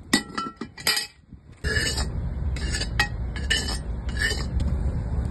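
A few ringing metal clinks, then a metal spatula scraping several times around the inside of an empty steel kazan (cauldron) over a fire. From about a second and a half in, a steady low rumble runs underneath.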